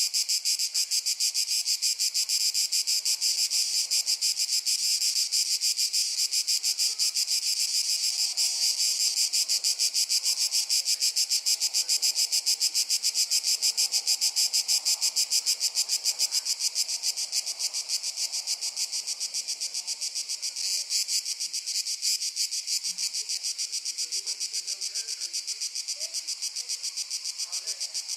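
Chorus of crickets chirping in a fast, even pulse, steady and high-pitched, easing slightly after about halfway.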